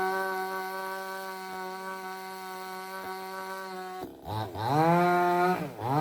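Two-stroke chainsaw running at steady high revs; about four seconds in the throttle is let off, and the pitch falls and climbs back up, then dips and rises again near the end.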